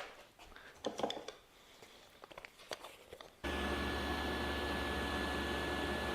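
A few light knocks of wood being handled, then about three and a half seconds in a table saw with a dado blade is suddenly running, a steady motor hum and whine.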